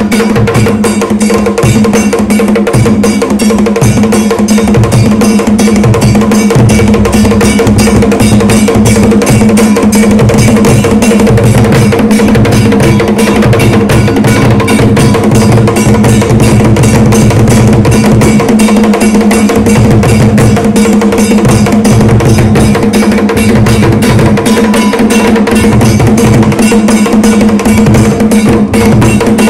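Loud, continuous drumming with a fast, repeating beat and a clacking percussion line keeping time: dance drumming.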